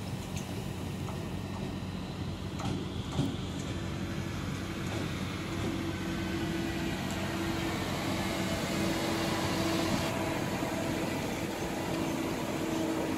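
SBB Cargo electric locomotive rolling slowly up the track, its steady electric hum coming in a few seconds in and growing louder as it nears. A single knock a little after three seconds.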